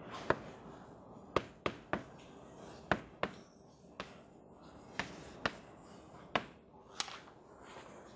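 Chalk on a blackboard: about a dozen sharp, irregular taps and clicks as strokes of a curve and words are drawn.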